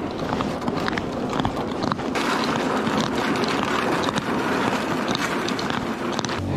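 Footsteps on bare lake ice, a steady run of short crunches and clicks, with a plastic ice-fishing sled scraping along the ice behind. About two seconds in, a hissing scrape grows louder.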